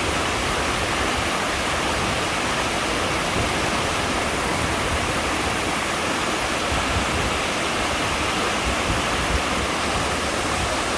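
Waterfall pouring steadily into a rocky mountain-valley pool: a constant, full rush of falling water with no breaks.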